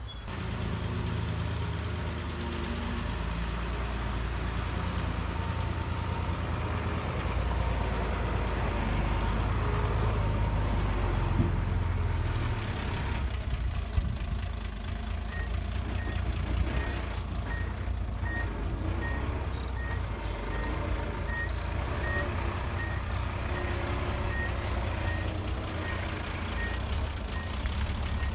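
Heavy diesel earthmoving machinery (bulldozer and dump truck) running with a deep engine note that swells for a few seconds in the first half. From about halfway through, a reversing alarm beeps evenly, under one beep a second.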